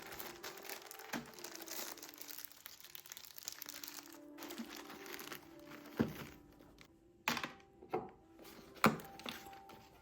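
Crinkling, rustling handling noise for the first four seconds or so, then a few sharp knocks as objects are set down, over soft background music.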